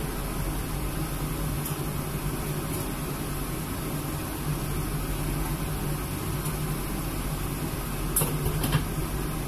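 Kitchen range hood fan running with a steady hum over the stove. A few light clinks of cookware come near the end.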